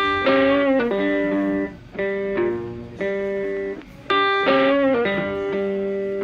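Background music: a guitar playing sustained chords, a new chord about every second, with a couple of notes bent upward in pitch.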